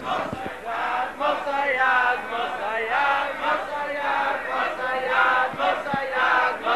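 A large crowd of men singing together in unison, loud and rhythmic, in short repeated phrases.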